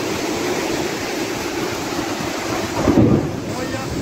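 Muddy floodwater rushing down a street in heavy rain, a dense steady roar of water, with a louder low rumble about three seconds in.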